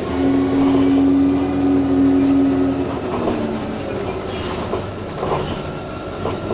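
Orion VII Next Generation hybrid-electric bus heard from inside while riding. A strong steady electric drive whine holds for about three seconds, then slides down in pitch, over the rumble of the ride.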